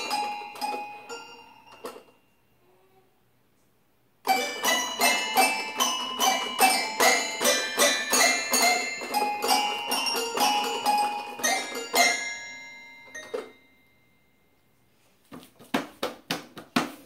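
A toddler plays a toy piano, striking many keys at random in quick clusters of notes that ring on. The playing stops about two seconds in, starts again about four seconds in, and runs for about eight seconds before dying away. A few quick knocks come near the end.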